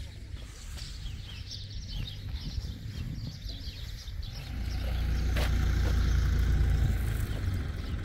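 Small birds chirping in the first half, then a low rumble that grows from about halfway and stays, with one sharp click a little after it starts.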